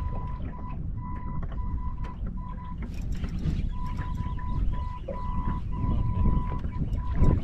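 Wind buffeting the microphone, a heavy low rumble, with a thin electronic beep tone that keeps breaking off and starting again.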